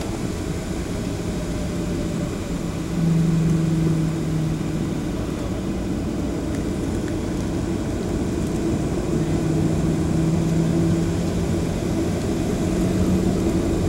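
Cabin noise inside a Boeing 737 taxiing: the jet engines running at low taxi power with a steady rumble, and a low hum that swells and fades in stretches of a second or two.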